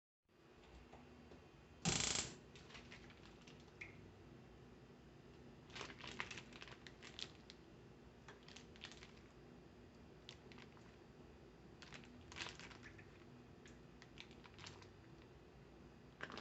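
Faint handling noises from cooking preparation: scattered light knocks, clicks and rustles, with one louder knock about two seconds in.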